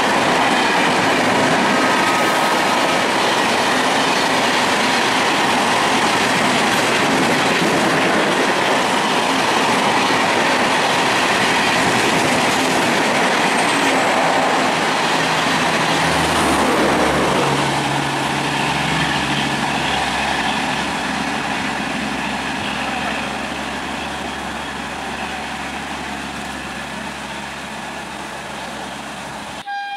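Passenger coaches of an express train running past at speed close by: a loud, steady rush of wheels on rail, which fades gradually from a little past halfway as the rake draws away. The sound cuts off suddenly just before the end.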